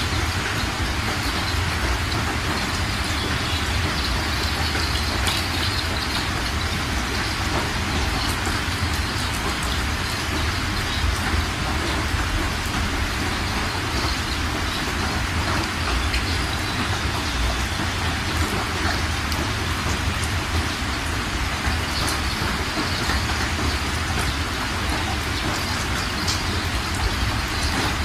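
Floodwater rushing fast over stony ground: a steady, unbroken rush with a low rumble underneath.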